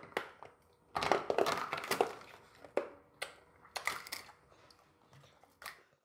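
Plastic candy wrappers and packaging crinkling and rustling in irregular bursts as they are handled, with a few sharper clicks.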